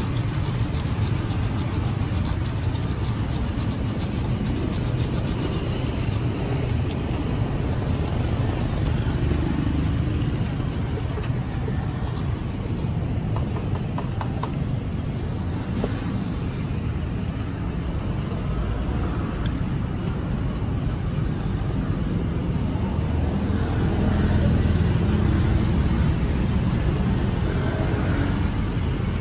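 Steady low rumble of road traffic, swelling about three-quarters of the way through as a vehicle passes.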